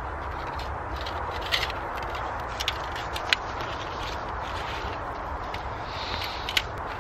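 Steel plates of a OneTigris Rocuboid flat-pack wood stove being handled and taken apart, with a few sharp metal clicks and light scrapes over a steady background hiss.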